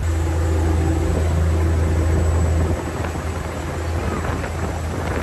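Ferry engine running with a steady low drone over a steady hiss; the drone eases a little about three seconds in.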